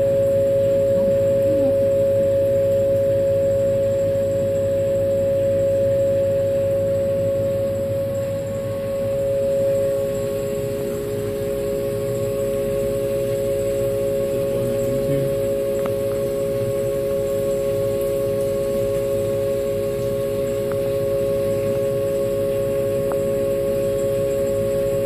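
Haas V1 CNC vertical mill milling steel with an end mill, a steady pitched whine of the spindle and cut with a few fainter tones over a low rumble, as it machines the radius of a pocket.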